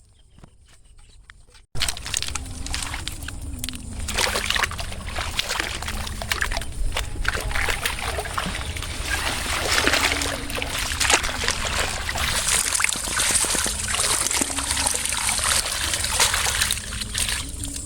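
Water splashing and sloshing, with many small irregular splashes and trickles. It starts abruptly a little under two seconds in, after near quiet.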